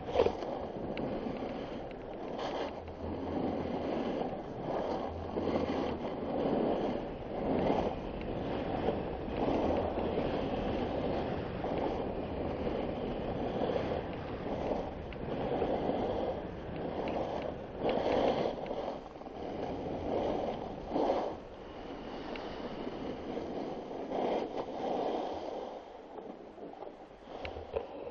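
A snowboard sliding and carving on groomed snow at speed: a continuous scraping rush mixed with wind on the microphone, swelling every second or so. It grows quieter over the last few seconds.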